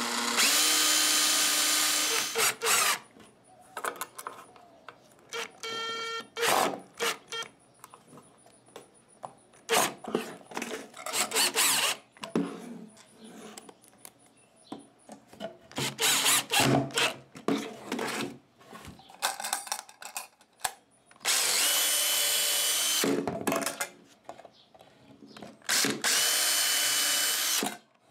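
Cordless drill and cordless screwdriver running in about five short bursts with a steady motor whine, drilling pilot holes and driving small brass screws into wood to fasten a brass latch. Short clicks and rattles of screws and handling come between the bursts.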